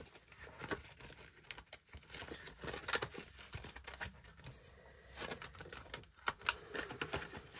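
Paper budget envelopes and banknotes rustling and crinkling as they are handled, with scattered sharp clicks and taps.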